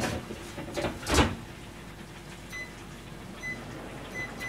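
A single clunk about a second in, then several short high electronic beeps at uneven intervals as a cooker's buttons are pressed to set a 5-minute grilling timer, over a faint steady hum.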